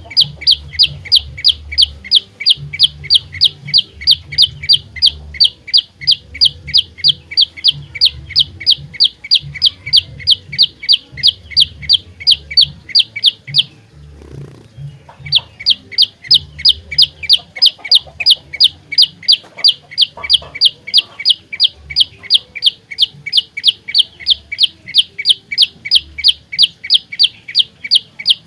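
Prenjak lumut singing its loud, rapid call: a fast even train of sharp, piercing notes, about three a second, breaking off for a couple of seconds about halfway through and then resuming.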